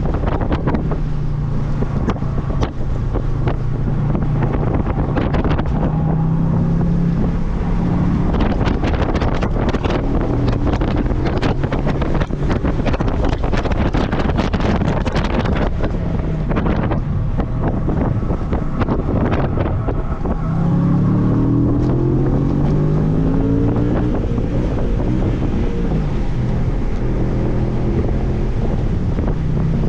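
Heavy wind buffeting on the microphone over the Audi B7 RS4's 4.2-litre V8 at speed. The engine's pitch holds fairly steady for stretches and climbs as the car accelerates about two-thirds of the way through.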